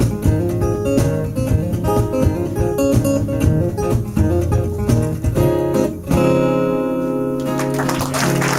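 Acoustic guitar playing the instrumental ending of a live country song, picked and strummed, with a final chord struck about six seconds in and left to ring. Audience applause starts near the end.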